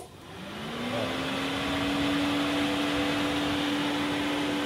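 Renault Sandero's electric radiator cooling fan switched on at its second (high) speed, spinning up over about a second with a rising whine, then running steadily. It is working properly, with its loose ground-cable bolt now retightened.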